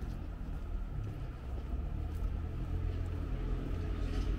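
Low rumble of an approaching London Underground train on the tracks beside the path, growing slowly louder.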